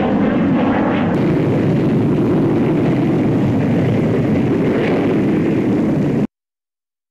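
Loud steady roar of the Fairey Delta 2 research jet's Rolls-Royce Avon turbojet as the aircraft flies past and touches down, cutting off suddenly about six seconds in.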